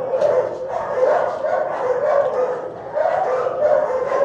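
Shelter dogs barking with no break, about two or three barks a second.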